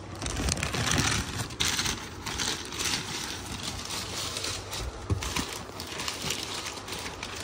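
Plastic courier mailer bag crinkling and tearing as it is pulled open off a cardboard box, with one sharp knock about five seconds in.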